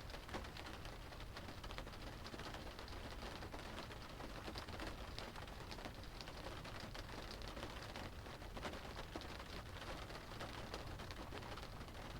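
Rain drumming steadily on a car's roof and windows, heard from inside the car as a dense patter of many small drop hits.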